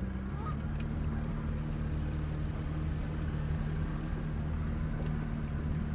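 Motorboat engine running steadily underway with a low, even hum; its note changes slightly just after the start.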